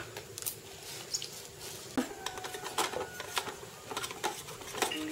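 Plastic toys clicking and clattering on a hard tiled floor as they are handled: a string of irregular light knocks.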